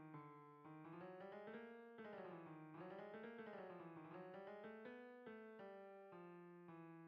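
Quiet background keyboard music: quick runs of notes that rise and fall through the middle, then slower, separate notes and chords near the end.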